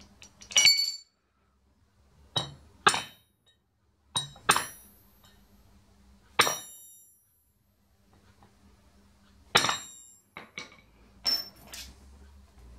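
Hammer striking a steel punch to drive a tight-fitting dowel pin into the sprocket end of a racing-engine camshaft: about nine sharp, ringing metal-on-metal taps at irregular intervals, the pin being tapped the last couple of millimetres home.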